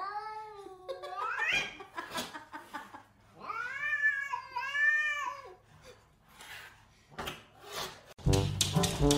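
Domestic cat giving defensive growls, drawn-out low yowling calls that bend up and down: a long one at the start that rises at its end, then two arching calls around the middle. Music begins near the end.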